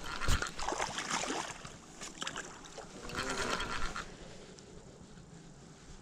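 Water splashing and sloshing at the bank as a hooked carp is played close in, with a sharp knock about a third of a second in; the noise grows quieter after about four seconds.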